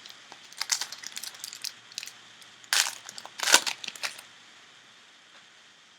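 Crinkling and rustling from a trading-card pack wrapper and cards being handled, with two louder crackles around three and three and a half seconds in.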